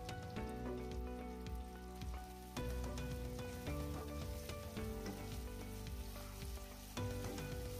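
Sliced onion, capsicum and carrot stir-frying in hot oil in a pan, sizzling, with a spatula clicking and scraping against the pan. Background music with changing chords plays under it.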